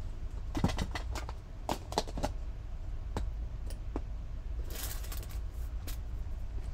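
Craft supplies being picked up and moved about on a tabletop: scattered light knocks and clicks, with a short rustle about five seconds in, over a low steady hum.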